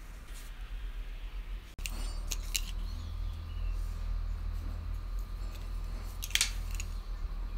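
Light clicks and taps from a paint marker and small wooden blocks handled on a workbench: a few in quick succession about two seconds in, and another small cluster near the end, over a low steady hum.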